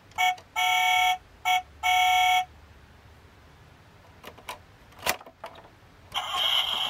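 A toy police car's electronic sound unit gives four steady, horn-like beeps in a short-long-short-long pattern, set off by pressing the button on its roof light bar. A few small clicks follow, and near the end a rushing whir starts up.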